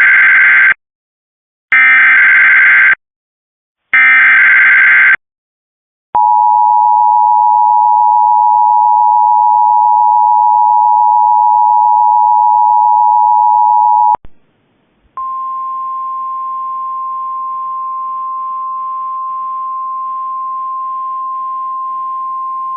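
Emergency Alert System activation: three loud, buzzy one-second bursts of SAME header data, then the two-tone EAS attention signal held for about eight seconds. After a brief gap comes a quieter single steady tone, the NOAA Weather Radio 1050 Hz alert tone, lasting about nine seconds.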